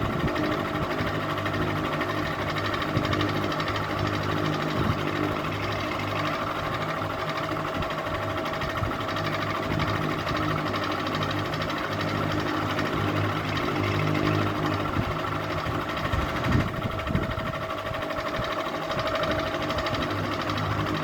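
Ceiling fan running, a steady motor hum with a few constant higher tones above it.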